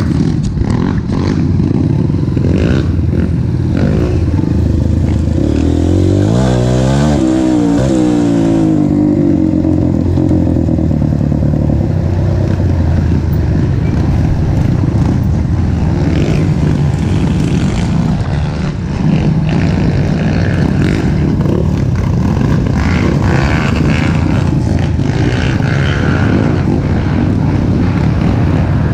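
Motorcycle engine running steadily during a ride, its pitch rising and falling again about six to eight seconds in.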